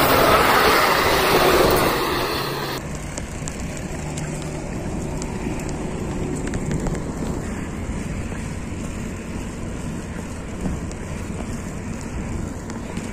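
Wind rushing over the microphone of a camera on a moving bicycle, with road noise. It is loudest for the first few seconds, then drops suddenly to a lower, steadier rush.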